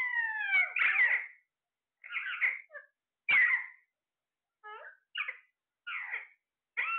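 Parrot calling: a string of about ten short squawks and whistles, several sliding down in pitch, with short silent gaps between them.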